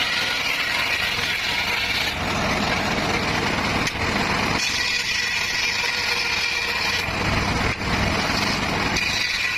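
Circular saw running continuously while sawing petung bamboo, its sound shifting every two to three seconds.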